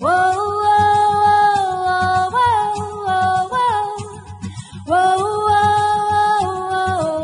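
Background music: a singer holding long notes, with a second phrase starting about five seconds in, over a soft steady accompaniment.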